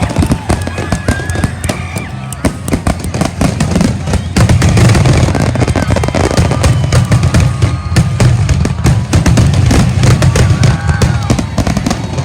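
Fireworks display: a rapid volley of crackling bangs, thickening about four seconds in into a dense run of heavy low booms.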